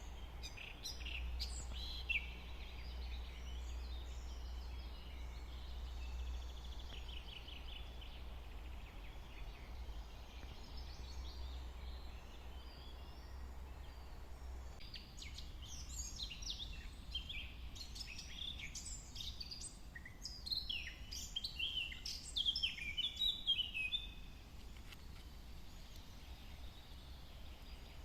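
Songbirds singing and calling: scattered chirps, a rapid trill about eight seconds in, and a busier, louder run of song from about fifteen to twenty-four seconds. A low steady rumble lies underneath and drops back after about fifteen seconds.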